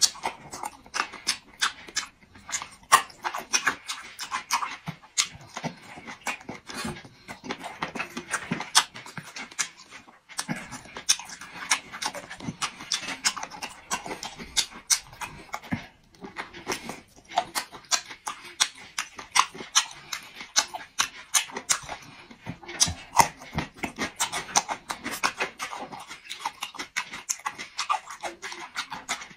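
Close-miked chewing of cooked ostrich kidney: wet mouth smacks and crunchy clicks, several a second, with a few short pauses.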